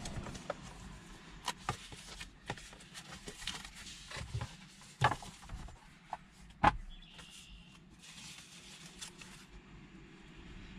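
Handling noise of paper and plastic: light rustling with scattered small clicks, and two sharper clicks about five and six and a half seconds in.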